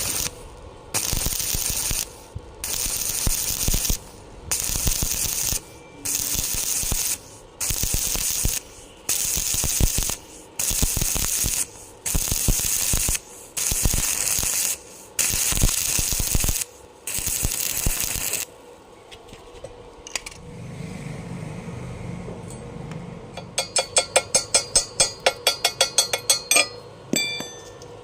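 Electric welding arc crackling and hissing in about a dozen regular bursts of a second or so each, with short pauses between, as in stitch welding. Near the end come a low hum and a fast run of ticks.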